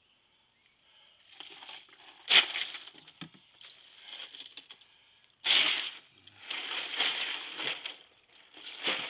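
Pocket knife sawing and crunching through a fish's head and backbone: irregular crunches, the loudest about two and a half seconds in and again at five and a half seconds.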